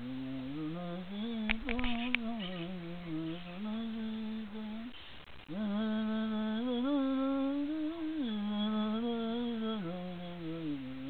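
A man humming a slow, low chant-like melody, holding long notes and sliding between them, with a break for breath about five seconds in. It sounds like a blessing chant sung over a seated person. A few light clicks sound about two seconds in.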